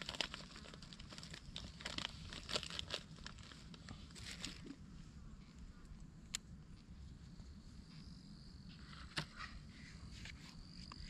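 Plastic food packaging crinkling and rustling in a quick cluster as packets are handled and torn open, followed by two sharp clicks further apart.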